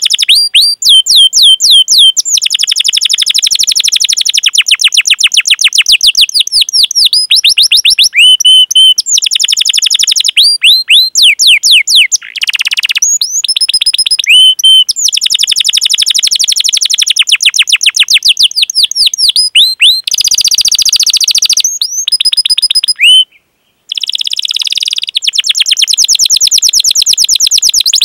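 Domestic canary singing a long rolling song: fast trains of high chirps, each sweeping down in pitch, about ten a second, in back-to-back phrases of 'cuit cuit' calls and rolls. A brief break falls about four-fifths of the way through.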